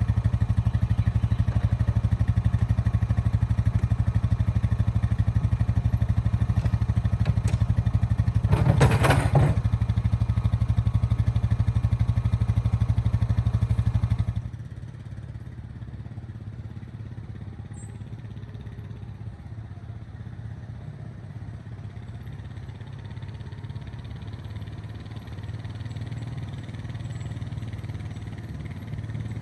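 ATV engine running steadily, with a brief clatter about nine seconds in. About halfway through, the engine sound drops suddenly and it keeps running much more quietly.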